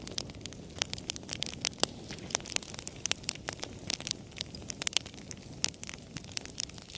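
Wood fire crackling in a fireplace: frequent sharp, irregular pops and snaps over a low, steady rush of burning.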